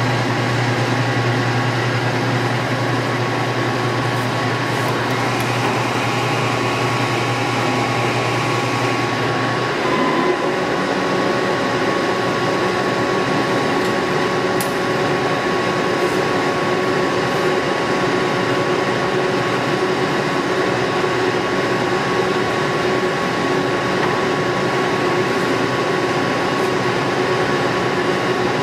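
Warner & Swasey No. 4A turret lathe running under power, a steady mechanical hum from its spindle and gearing. About ten seconds in, the low hum drops away and a higher steady tone takes over.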